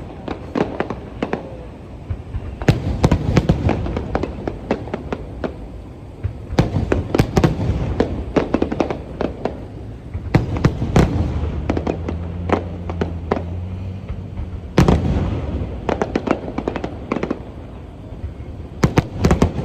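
Fireworks display: aerial shells bursting in rapid, uneven volleys of sharp bangs and crackles, with an especially loud burst about three-quarters of the way through.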